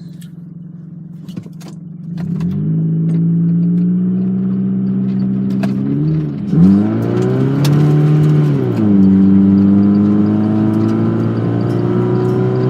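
Modified first-generation Ford Focus (ECU tune, intake and exhaust) accelerating hard from low speed: after a quieter start the engine note climbs. It dips and picks up again at a gear change about six seconds in, and again near nine seconds, then runs steadily.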